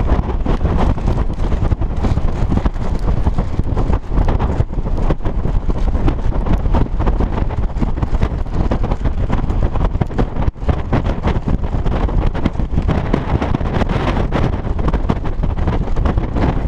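Strong wind buffeting the microphone: a loud, continuous low rumble that keeps flickering up and down in strength.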